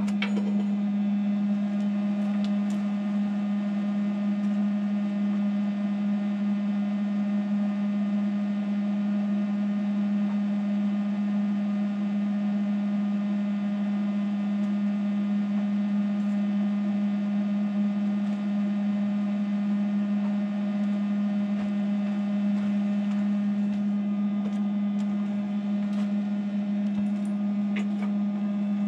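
A machine running steadily: a constant hum at one unchanging pitch with higher overtones, and a few faint clicks.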